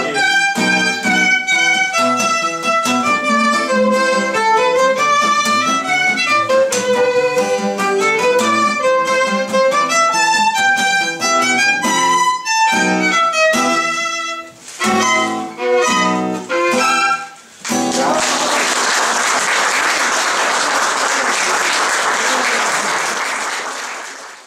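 Violin and acoustic guitar playing an instrumental outro, a violin melody over guitar chords, closing on a few separate chords with short gaps about fifteen seconds in. Then applause, which fades out at the end.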